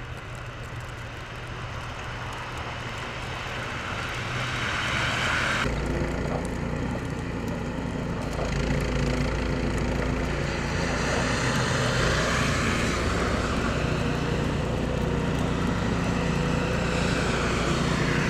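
A rising hiss that stops abruptly about six seconds in, then a gas-powered two-stage snowblower's engine running steadily as it clears heavy wet snow.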